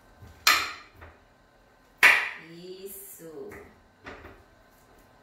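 Fork striking a plate while mashing ripe bananas: two sharp clinks about a second and a half apart, the second the loudest, then a few lighter taps.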